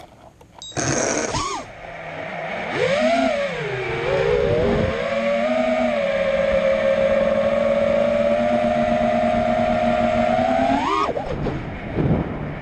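A 5-inch FPV freestyle quadcopter's brushless motors and propellers whining: a short loud burst as it lifts off about a second in, then a pitch that rises and dips and holds steady in flight. Near the end the whine climbs sharply as the throttle is punched, then falls away.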